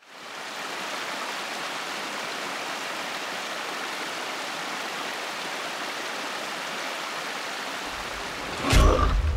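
Small mountain stream trickling and splashing over snow-covered, mossy rocks, a steady rushing. Near the end a loud, low sound cuts in suddenly over it.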